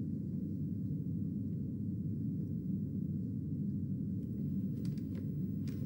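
Steady low rumble of room tone, with a few faint ticks about five seconds in.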